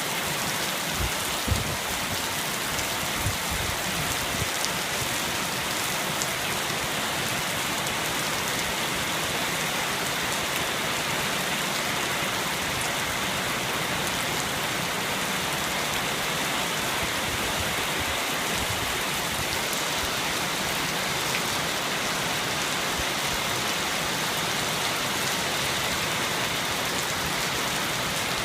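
Steady rain falling and pattering on surfaces. A few louder, sharper drop hits come in the first few seconds.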